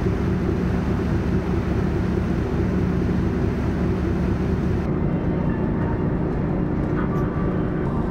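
Engines of an icebreaking sightseeing ship running with a steady low drone, over the rushing hiss of the churned wake through drift ice. About five seconds in the hiss drops away while the drone carries on.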